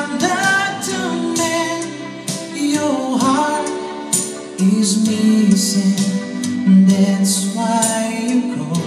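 A man singing live into a microphone, accompanying himself on an electronic keyboard, with long held notes and sliding pitches.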